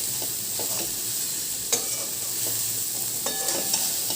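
Sliced ash gourd being stirred into fried rice and spices in a hot kadai, sizzling steadily. A spatula scrapes and knocks against the pan a few times, once near the middle and again near the end.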